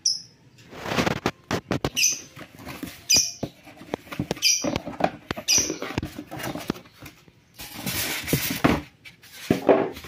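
Unpacking noise: cardboard box flaps and a plastic bag rustling and scraping, with styrofoam packing squeaking against the cardboard in several short, high squeaks during the first half.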